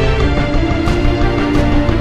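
Film soundtrack music: held notes over a heavy low end, with a few sharp hits.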